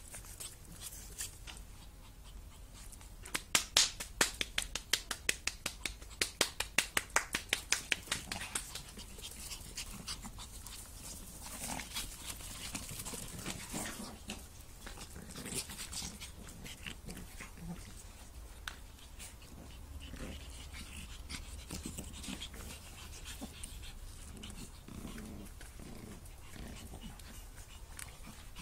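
Shih Tzu puppies playing and wrestling, with small dog sounds and low growls. About three seconds in, a fast run of sharp clicks or taps, several a second, goes on for about five seconds and is the loudest sound.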